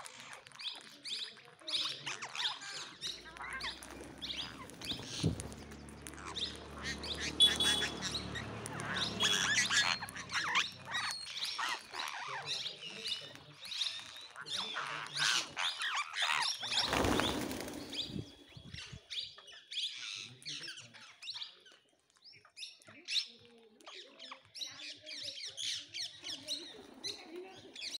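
Parrots squawking and chirping in many short, high, rapidly repeated calls. A low hum sits underneath from about three to eleven seconds in, and a brief loud rush of noise comes about seventeen seconds in.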